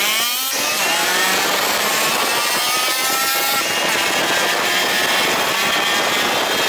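Moped engine running on the road, its pitch rising and falling as the throttle changes, under a strong rush of wind over the microphone.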